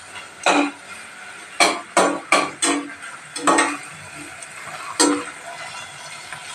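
A metal slotted spoon scraping and knocking against a stainless steel pot as onion, green chilli and tomato are stirred while they sauté in oil, about seven strokes at uneven intervals that thin out near the end. A faint steady sizzle of frying runs underneath.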